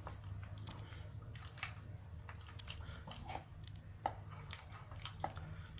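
Pekingese dog eating his dog food: faint, irregular crunches and clicks of chewing.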